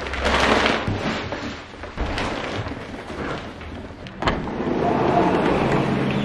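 Plastic packaging film rustling and crinkling as it is bundled up, with large cardboard sheets scraping and one sharp knock about four seconds in.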